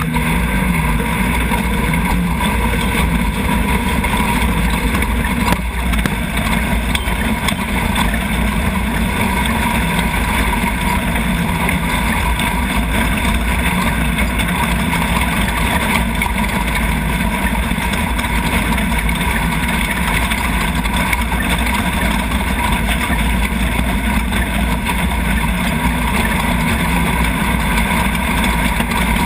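Loud, steady in-car noise of a Chenowth off-road racing buggy at speed: its Nissan VQ35 3.5-litre V6 running hard, with drivetrain, chassis and tyre noise over rough dirt.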